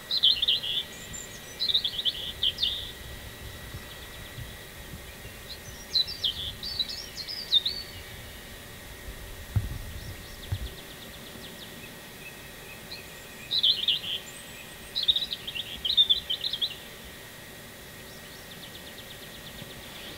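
A songbird sings quick, high phrases of rising and falling notes in bouts of a few seconds, three times, with fainter trilling between them.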